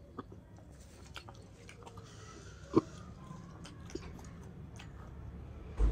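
Close-up chewing and mouth sounds of a person eating rice by hand, with scattered small clicks; a sharp click a little under three seconds in and a low thump near the end are the loudest sounds.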